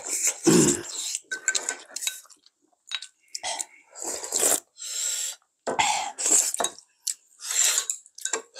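Eating at the table: spoons and chopsticks clinking against bowls in irregular short clicks, with broth slurped from a bowl about four seconds in, and chewing.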